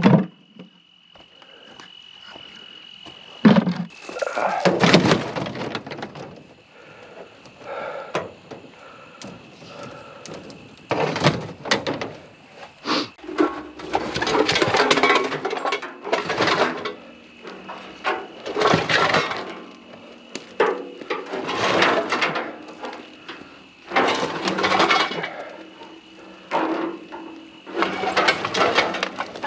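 Scrap metal clanking, scraping and rattling as pieces are handled and moved, in repeated bursts every second or two, over a faint steady high tone.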